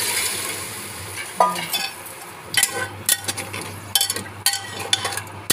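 Water poured into a hot pressure cooker of fried masoor dal and onion, sizzling and fading out in the first moments. Then a spoon scraping and clicking against the cooker as the dal is stirred with the water.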